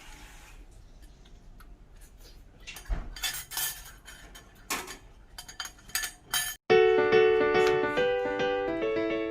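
Kitchen utensils and dishes clinking and knocking a few times during cooking, then an abrupt cut about six and a half seconds in to piano background music.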